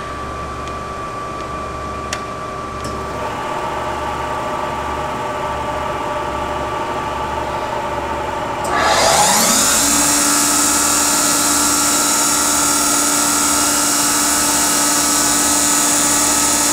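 Steady hum of a Chevalier CG-1440A cylindrical grinder as its OD grinding wheel coasts down, with two light clicks. About nine seconds in, the swing-down internal (ID) grinding spindle starts: its pitch rises for about a second, then it settles into a loud, steady, high-pitched whine running free with no work.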